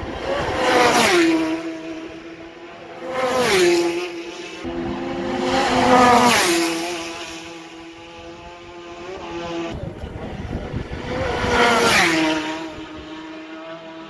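Four racing superbikes pass one after another at full speed, each a high-revving engine note that drops sharply in pitch as it goes by. A lower engine drone carries on between the passes.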